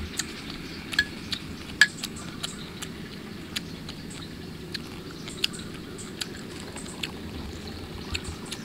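Close-miked eating sounds of someone chewing grilled mackerel. Irregular small wet clicks and lip smacks come every half second to second, over a steady low background rumble.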